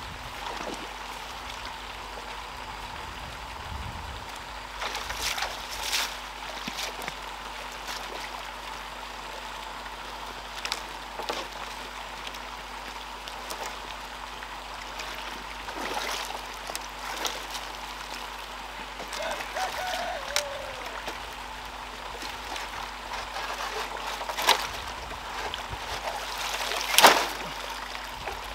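Water trickling and splashing, with scattered light knocks and clicks; the loudest knock comes near the end.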